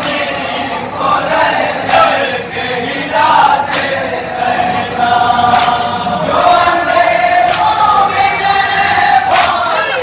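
Group of men chanting a nauha, a Shia lament, in chorus. A sharp slap of chest-beating (matam) lands about every two seconds.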